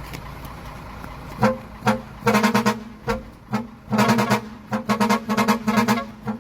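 A 4-ft vehicle air horn sounded in a quick rhythmic string of short toots, all at one steady pitch, starting about a second and a half in over a low steady rumble.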